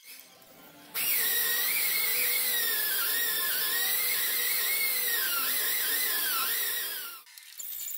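Small high-speed pneumatic die grinder running against sheet steel: a loud hiss of air with a whine that wavers up and down in pitch as the load changes, starting suddenly about a second in and stopping abruptly near the end.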